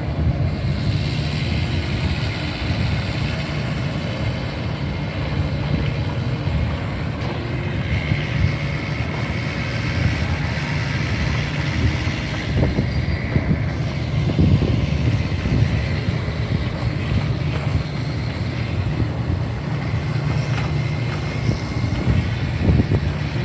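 Makita DRC200Z robotic vacuum cleaner running on wood decking: the steady whir of its suction motor and brushes, with a few short, louder knocks around the middle and near the end.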